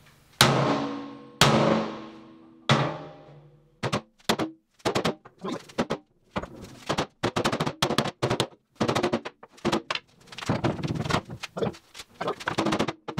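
Three sledgehammer blows on the back of a steel loader bucket, each clanging and ringing out, knocking down a curve in the bucket so a quick attach plate will sit flush. After that comes a run of short percussive beats, most likely background music.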